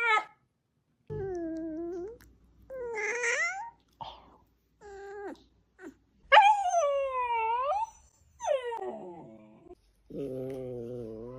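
Dogs yawning out loud: a string of separate vocal yawns, each a whining tone lasting about a second that dips and then rises in pitch, with short silent breaks between them.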